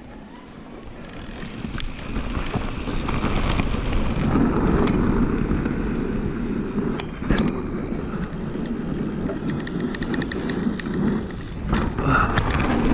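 Electric mountain bike rolling down a rough trail: a steady rumble of tyres and rattling bike over the ground, with wind on the microphone, building over the first couple of seconds. Scattered knocks from bumps, and a few brief high squeals of the disc brakes near the middle and the end.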